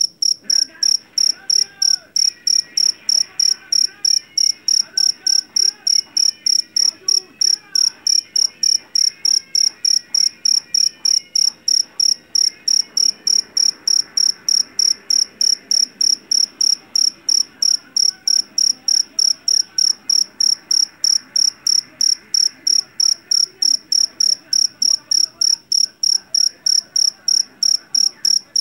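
Jangkrik jeliteng (Javanese black field cricket) singing loudly, a high, shrill chirp repeated evenly about three times a second without a break.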